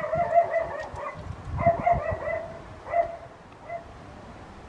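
An animal calling four times: two drawn-out calls of about a second each, then two short ones.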